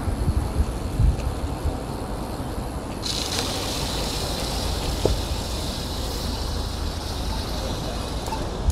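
Wind buffeting the microphone of a bicycle-mounted action camera while riding, with tyre and road noise and a few thumps from bumps in the pavement. A steady hiss joins about three seconds in and drops away near the end.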